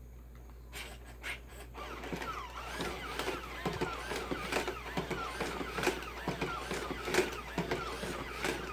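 Robosapien V2 toy robot's small gear motors whirring, with a wavering pitch and a run of clicks as its joints move.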